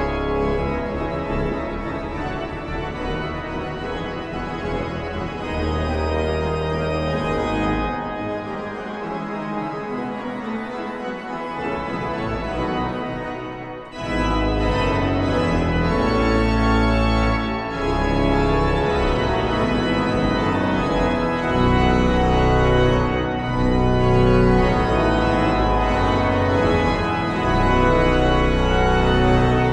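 Church pipe organ playing. The deep bass drops out for a few seconds, then about halfway through the music turns suddenly louder and fuller, with strong bass.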